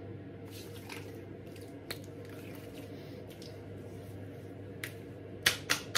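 Hands rubbing aftershave splash onto wet skin with soft wet swishes, then a few sharp slaps near the end as the palms pat it onto the face and neck.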